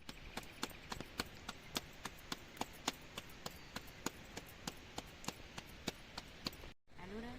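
Rapid, even chopping, a blade striking a wooden surface about four times a second. Near the end comes a short rising call.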